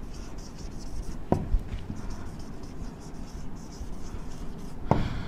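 Marker pen writing on a whiteboard in a run of short strokes, with two sharper knocks, one about a second in and one near the end.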